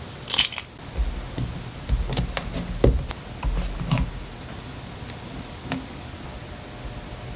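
Scattered taps, knocks and light paper rustles from hands working on a scrapbook journal page, over a steady hiss. The handling stops about four seconds in, leaving only the hiss.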